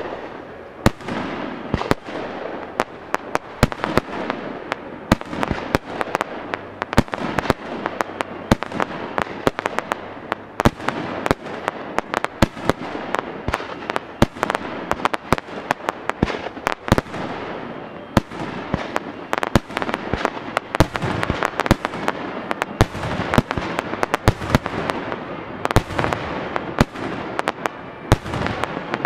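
Aerial fireworks shells bursting in a rapid barrage: a dense run of sharp bangs, several a second, with a steady din of noise between them.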